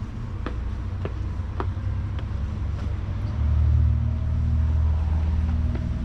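Street traffic: a vehicle's low engine rumble that grows louder a little past halfway as it comes closer, with a few light ticks about twice a second in the first couple of seconds.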